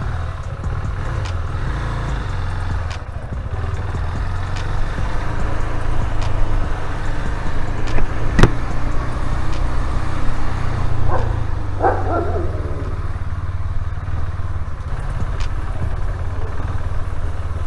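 KTM Duke 390 single-cylinder engine running steadily under way, heard as a constant low rumble. A sharp click comes about eight seconds in, and two short higher-pitched sounds follow a few seconds later.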